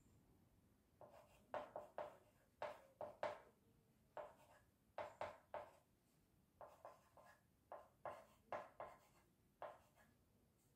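Chalk writing on a small blackboard: a run of short scratchy strokes in quick clusters, starting about a second in and stopping shortly before the end.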